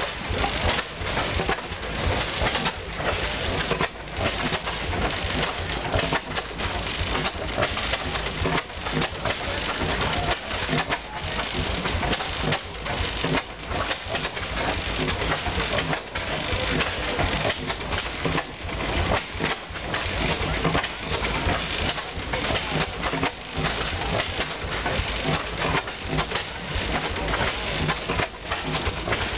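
Steam traction engines running: a steady hiss of steam with irregular clattering and knocking.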